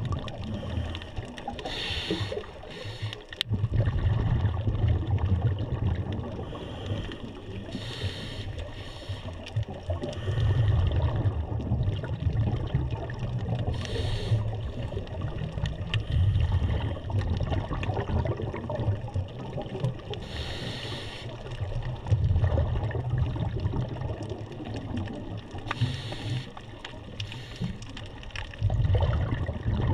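Scuba diver breathing through a regulator underwater: a short hiss of drawn air about every six seconds, each followed by the low rumble of exhaled bubbles.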